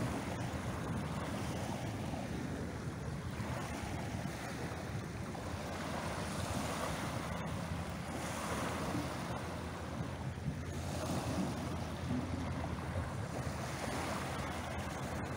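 Small waves breaking and washing up a pebble beach, swelling and easing every few seconds, over a low rumble of wind on the microphone.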